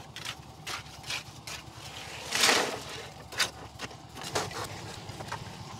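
A steel trowel scraping and tapping wet concrete in a wooden beam form, in short irregular strokes, with one louder rough scrape of concrete about two and a half seconds in. An engine hums steadily underneath.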